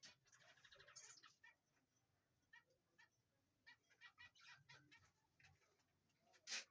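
Birds calling faintly in many short, high chirps, with a fast stuttering run of notes in the first second. A sharp click near the end is the loudest sound.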